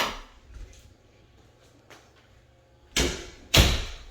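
An interior door being handled: a click as it starts, then two loud knocks about half a second apart near the end.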